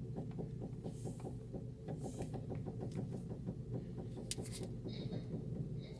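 A rapid run of light knocks from a 2010 Honda Civic's front suspension as the steering wheel is turned, heard inside the cabin over the low hum of the idling engine. It is the front strut's coil spring vibrating, a defect the mechanic blames on a poor-quality strut kit.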